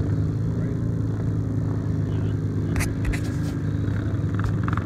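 ATV engines running with a steady low drone, and a few short clicks about three seconds in.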